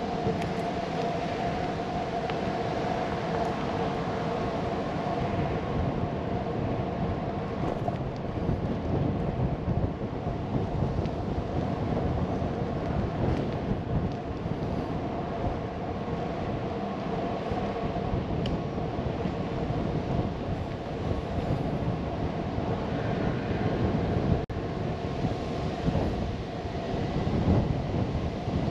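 Continuous rumbling ride noise with wind buffeting the microphone, and a steady whine that fades out after the first eight seconds or so.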